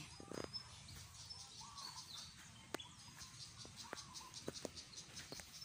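Faint insect chirping, a quick, even run of high pulses, with a few soft clicks now and then.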